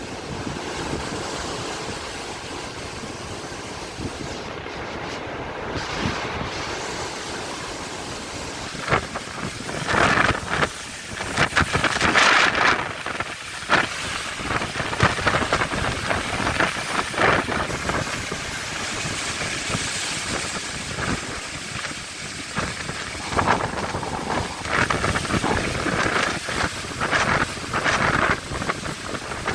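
Strong wind gusting and buffeting the microphone over the rushing of sea waves. The gusts come in loud, uneven surges from about a third of the way in.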